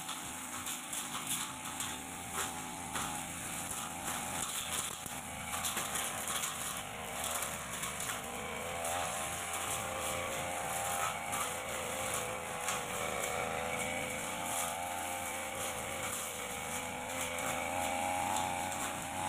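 Backpack brush cutter engine running steadily while its blade cuts light grass, the engine note wavering up and down.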